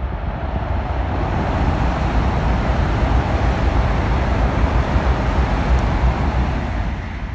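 Shinkansen N700S bullet train passing at speed: a rushing noise that swells to its loudest through the middle and fades near the end. Wind buffets the microphone throughout.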